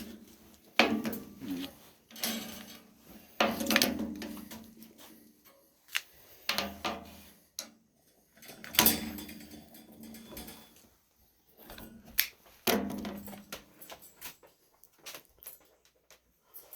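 Irregular knocks and clatter of objects being handled, one every second or two, some with a short ring after them.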